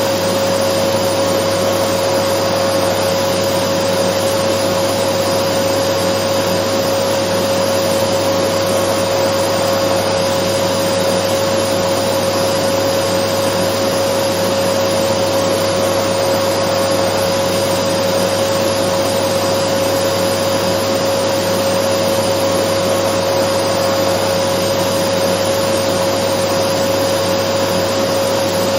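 Dyson vacuum cleaner running steadily: an even rushing noise with a constant motor whine, unchanging throughout.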